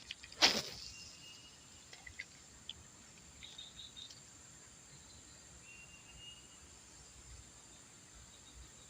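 Quiet outdoor ambience of insects, a steady high buzz, with a few short bird or insect chirps. A single brief whoosh about half a second in is the loudest sound, and a few faint ticks follow a couple of seconds later.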